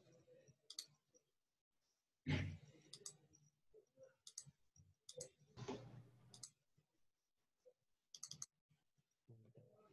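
Faint computer mouse clicks, a handful of single and quick paired clicks spaced a second or two apart, with two dull thumps about two and five and a half seconds in.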